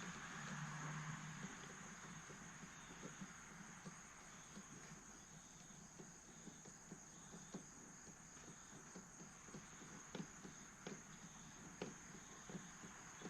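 Near silence: a faint, steady, high-pitched insect chirring with scattered light clicks and taps of hand work on the ATV.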